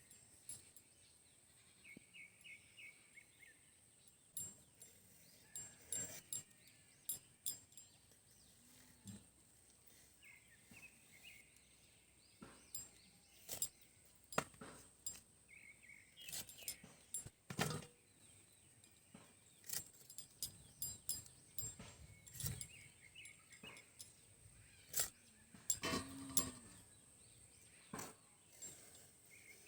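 Ridge gourd being cut with a blade: irregular soft clicks and knocks of the cutting. Brief bird chirps come through several times.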